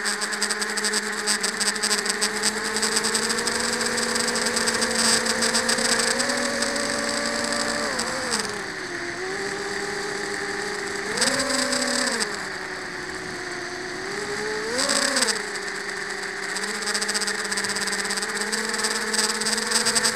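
FPV drone's electric motors and propellers whining, heard close up through the onboard camera. The pitch holds steady, climbs a little about six seconds in and drops about eight seconds in, then surges briefly twice, around eleven and fifteen seconds in, as the throttle is opened and closed.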